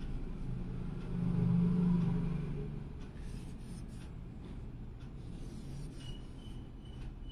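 A low motor hum, swelling to its loudest about a second in and easing off by three seconds. Near the end a short high chirp repeats about twice a second.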